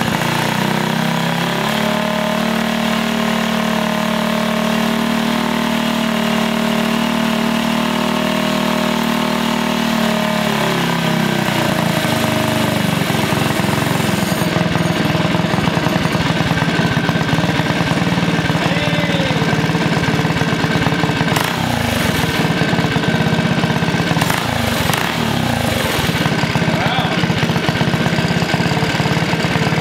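The minibike's 225 cc single-cylinder engine running on the stand. For about the first ten seconds it holds a fast, steady speed, then the speed drops and it settles into an uneven, lumpy idle.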